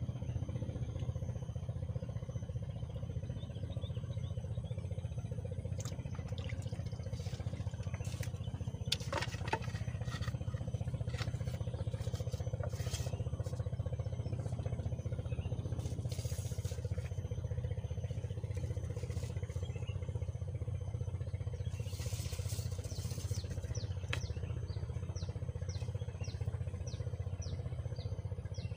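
A steady low engine drone, with a few light clicks and, near the end, a run of high ticks about two a second.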